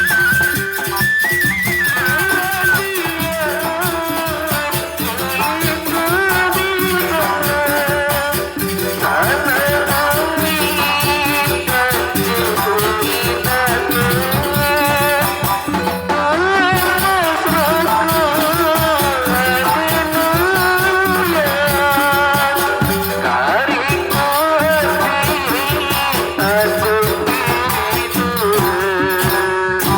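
Folk music with a wavering, heavily ornamented melody, sung or played on a wind instrument, over steady rattling percussion.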